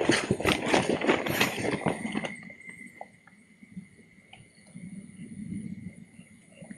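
Footsteps hurrying along a dirt path, with leaves brushing against the legs, for about two seconds, then stopping. After that only a faint low rumble, a few light ticks and a steady thin high tone remain.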